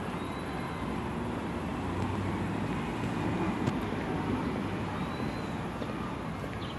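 Road traffic running steadily, with one vehicle getting louder and fading again in the middle.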